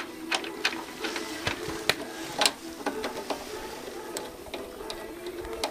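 Irregular clicks and taps of hand tools at work on a motorcycle, a dozen or so spread unevenly, over a steady low hum.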